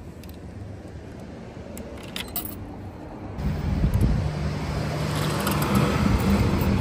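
Road traffic: a car engine running close by, growing louder over the last few seconds. Before it, a few faint clicks.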